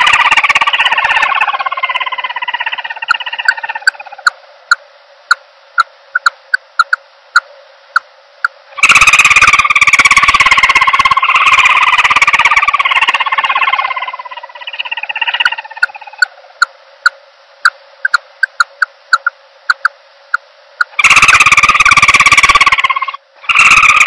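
Recorded calls of a common emerald dove played as a trapping lure. Long, loud, slightly falling calls lasting several seconds alternate with series of short sharp notes that come faster and faster.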